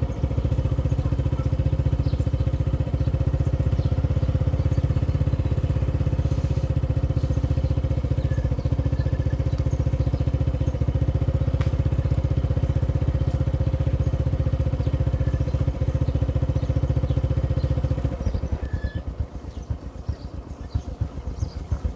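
Small motorcycle engine running at a steady speed. About three-quarters of the way through it drops to a quieter, uneven putter as the throttle eases off.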